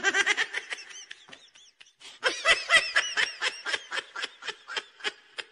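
A person laughing hard in rapid, high-pitched bursts of 'ha-ha-ha', in two bouts: a short one at the start, then a longer one from about two seconds in.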